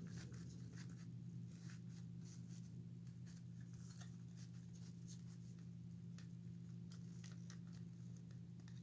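Faint scattered rustles and light clicks of hands handling a small animatronic figure and its cloth clothing, over a steady low hum.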